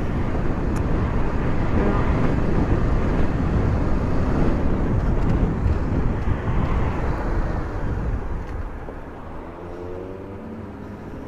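Wind rush and engine of a Honda CB500F parallel-twin motorcycle under way, heard at the rider's helmet mic as a loud, steady roar. It dies down about eight seconds in as the bike slows for an intersection.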